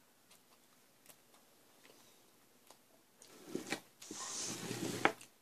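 Eating sounds from noodles eaten with a fork: near quiet for about three seconds, then a few clicks and wet chewing noises for the last two seconds.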